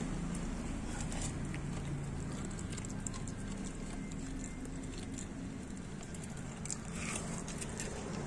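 Dog chewing and smacking on chunks of pork from a steel bowl: scattered small wet clicks, a little busier near the end. A steady low hum runs underneath.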